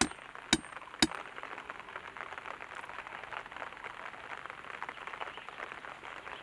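A metal hand tool strikes with sharp ringing clanks about twice a second, three times in the first second. After that comes a steady, fine crackling patter.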